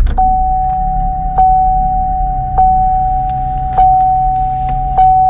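GMC Acadia's dashboard warning chime sounding a steady high tone with a short accent about every second, alongside the HOOD OPEN warning, over the low rumble of the engine just started and running.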